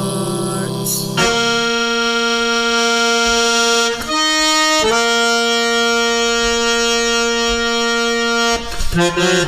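Instrumental close of a song: long held chords, one giving way to another about four seconds in, with a brief busier passage near the end.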